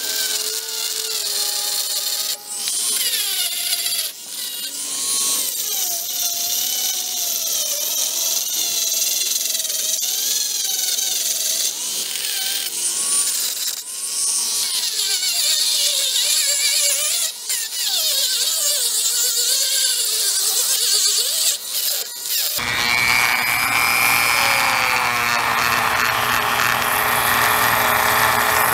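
Dremel rotary tool running at high speed as a small abrasive wheel grinds the surface of a bronze casting held in a vise, its whine wavering in pitch as the bit bears on the metal. About three-quarters of the way through, the sound turns suddenly fuller and rougher as a different bit works the bronze.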